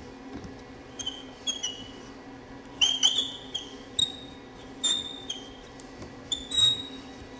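Set screw on a car-audio distribution block being tightened down onto bare 1/0 gauge copper wire with a hand driver. It makes a series of short, high metallic squeaks, each with a click, about eight in all, the loudest around three seconds in and near the end.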